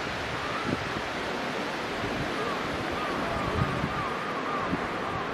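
Steady rushing outdoor wash of wind and air. From about two seconds in, a small bird calls a run of short, dipping notes, about three a second.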